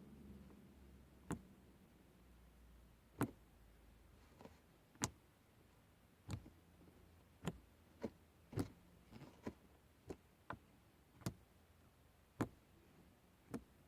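Slime being worked in the hands, giving a string of sharp little clicks and pops at uneven intervals, about one a second.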